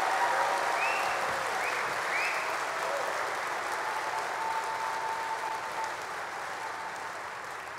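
Concert audience applauding, with a few short whoops in the first couple of seconds; the applause slowly dies away.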